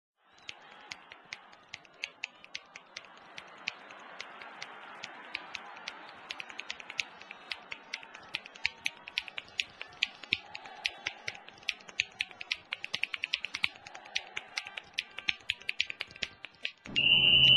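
Rapid finger snapping: sharp, crisp snaps that speed up from about two a second to about four a second, over background music. Near the end a loud, shrill blast cuts across them.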